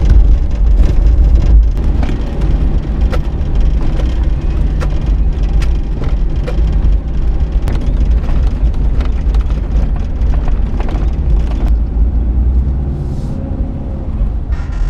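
2001 Hyundai Galloper 4x4 driving on a rough gravel track: a loud, steady low rumble of engine and road noise with frequent knocks and rattles. The knocks thin out about twelve seconds in.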